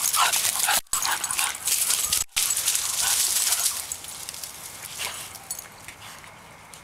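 English bulldog giving short high whines and yips while she scrabbles through a bush and dry leaf litter, with a rustling of leaves that dies down over the second half. The sound cuts out briefly twice.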